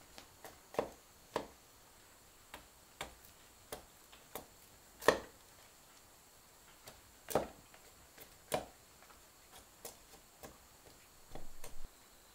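Knife cutting and tapping on bamboo by hand: irregular sharp clicks and knocks, roughly one every half second to second. The loudest knock comes about five seconds in, and a quick run of small taps comes near the end.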